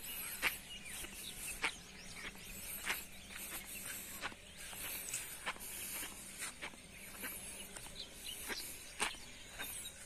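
Outdoor rural ambience: birds chirping, with scattered sharp clicks and knocks about once or twice a second.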